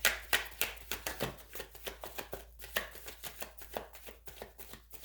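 Tarot cards being shuffled by hand, a quick run of crisp card clicks, about four a second, growing fainter towards the end.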